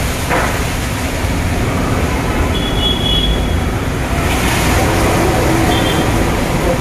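Automatic gantry car wash running: its motor-driven rotating brushes make a steady loud noise. A short high tone sounds about three seconds in and again briefly near the end.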